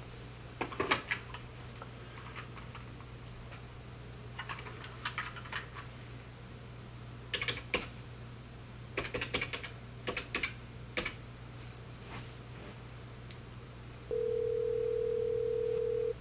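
Short clicks in several quick runs as keys on a phone are pressed to dial a number, then near the end a loud steady telephone ringback tone as the call rings out.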